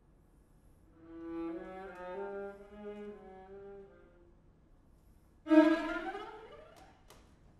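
String quartet of two violins, viola and cello playing contemporary classical music in abrupt fragments. After a pause, the bowed strings hold a soft chord for about three seconds. After another silence comes a sudden loud bowed stroke that slides down in pitch and dies away.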